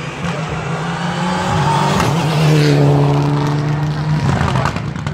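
Rally car engine running hard at high revs as the car comes down the stage, loudest about halfway through, with a slight fall in pitch afterwards.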